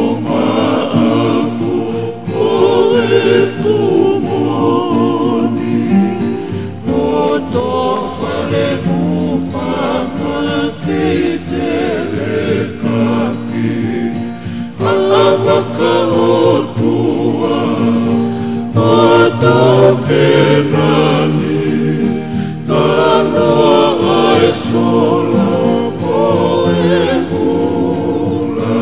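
Tongan faikava song sung by a group in several-part harmony to a strummed acoustic guitar, in phrases with short breaths between them.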